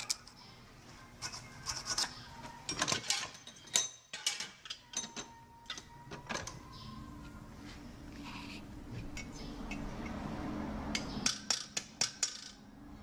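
A sharpened screwdriver scraping and picking old bushing glue out of the keyway of a cast-iron Bridgeport variable-speed motor disc: short metal-on-metal scrapes and ticks. For a few seconds in the middle there is a steadier rushing noise.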